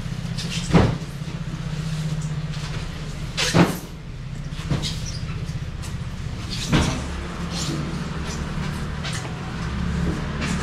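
A vehicle engine running with a steady low hum, broken by several sharp knocks or bangs, the loudest about a second in and three and a half seconds in.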